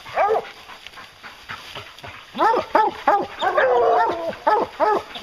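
Pack of English hounds baying at a treed black bear. One bark comes at the start, and after a short lull the dogs bark over and over, about two a second, with one longer drawn-out bark in the middle of the run.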